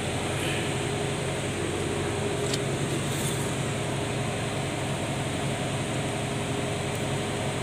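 Steady machine hum: an even rushing noise with a low steady drone underneath, unchanging throughout, with one faint tick about two and a half seconds in.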